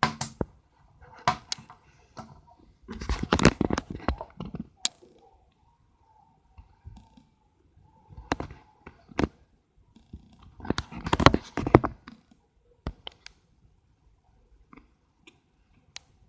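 Scattered sharp clicks and knocks, with two longer bursts of rustling about three and eleven seconds in.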